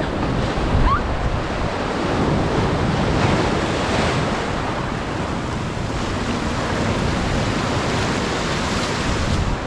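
Sea surf breaking and washing over shoreline rocks, a steady rushing of water.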